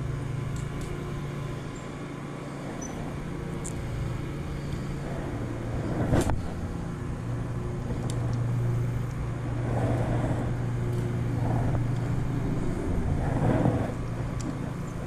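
Road traffic crossing the bridge overhead: a steady low rumble that swells as vehicles pass, with one sharp knock about six seconds in.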